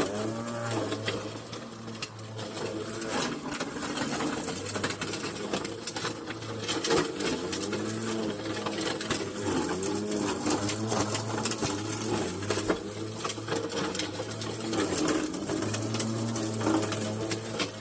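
Milwaukee M18 Fuel 21-inch battery mower's motor and blade running at high speed while it mulches a pile of pine cones, pine needles and sticks. The motor's pitch dips and recovers several times as it takes on the debris, without bogging down. Many sharp cracks and clicks come from the debris being chopped and thrown against the deck.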